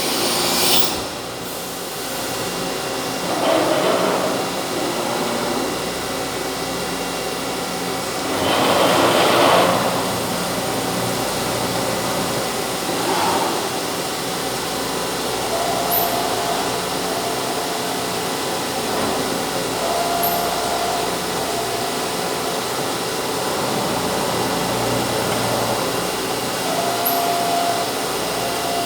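CNC machine running with a steady mechanical noise and several louder rushing surges. In the second half a short steady tone sounds three times.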